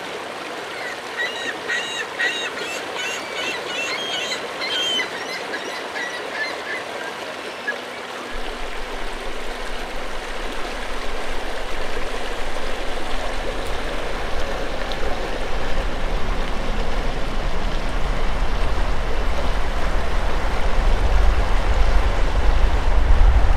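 Bow River water rushing steadily, with short high-pitched calls during the first few seconds. About eight seconds in, a low rumble comes in and grows louder toward the end.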